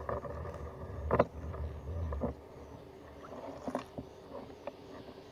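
A gill net being hauled by hand over the side of a wooden boat: the wet net rustling and dripping, with a sharp knock against the hull about a second in and a few lighter knocks near the end.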